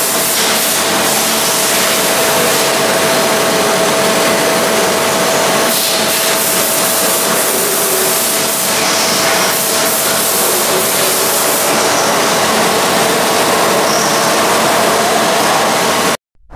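Coolant spraying and splashing inside the enclosure of a Tsugami TA3 horizontal machining center, a loud steady hiss with a steady whine running through it. It cuts off suddenly near the end.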